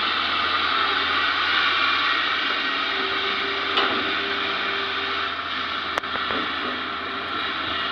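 Hitachi ZX200 excavator running steadily, its engine and hydraulics a constant noise, with one sharp click about six seconds in.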